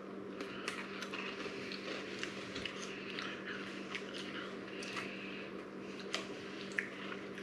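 Crunching and chewing of crisp, cracker-like pretzel sticks: a run of small, irregular crackles.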